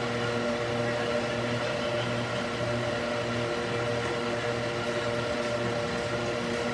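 Electric cooling fan mounted in a wooden box, running steadily: an even rush of air with a constant hum of several steady tones.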